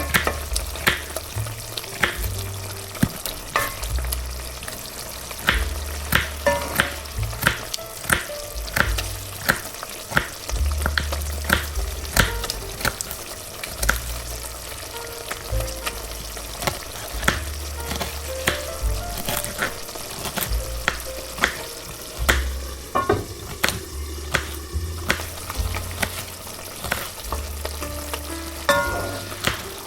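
Food sizzling in a frying pan, with frequent irregular clicks and scrapes of a utensil stirring it.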